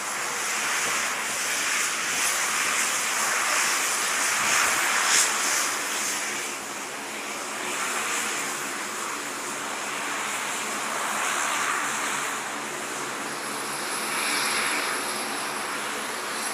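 Turboprop engines and propellers of a Royal Australian Air Force C-130J Hercules running as it taxis past, a steady loud rush that swells and eases twice.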